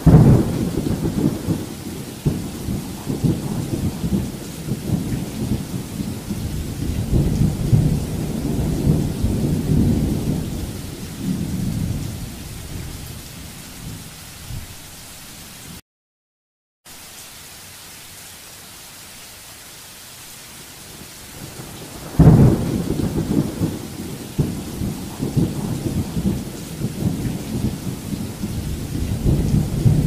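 Steady rain with two long rolls of thunder. The first breaks suddenly at the start and rumbles for about fifteen seconds before fading. The second cracks in sharply about twenty-two seconds in and rumbles on. The sound cuts out completely for about a second midway.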